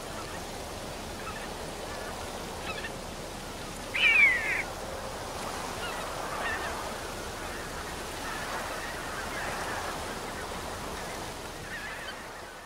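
Geese honking: one loud call about four seconds in, with fainter calls scattered through, over a steady hiss. The sound fades out at the end.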